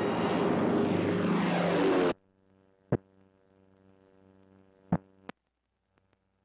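Propeller aircraft engines droning loudly, with pitch sliding downward as in a dive or fly-past, cut off abruptly about two seconds in. A faint steady hum from the old film soundtrack follows, with three sharp pops.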